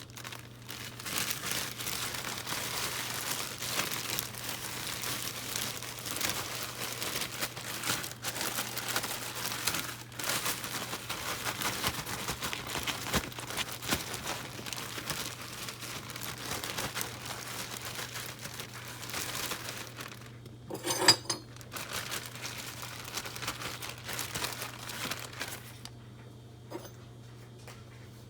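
Plastic zip-top bag crinkling and rustling as bass pieces are shaken inside it to coat them in breading. One sharp knock about three-quarters of the way through, and the crinkling dies down near the end. A steady low hum runs underneath.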